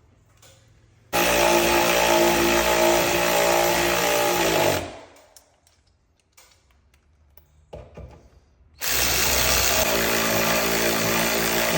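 Power drill driving mounting screws in two runs of about three to four seconds each, the first starting about a second in and the second near the end; the motor's pitch sags just as the first run stops.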